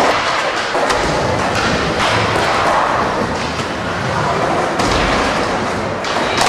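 Skateboard wheels rolling on the park's ramps, with a few thuds of boards hitting and landing.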